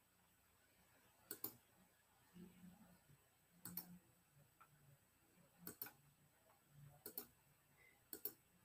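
Faint clicks at a computer desk, about five quick double clicks a second or two apart, over quiet room tone.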